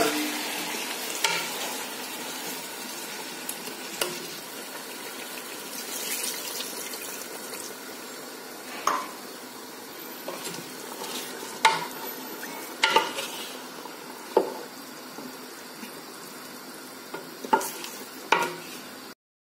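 Chicken pieces and potatoes sizzling in hot oil and masala in an aluminium pot, the sizzle dying down over the first several seconds. A spoon stirring knocks and scrapes against the pot every second or few.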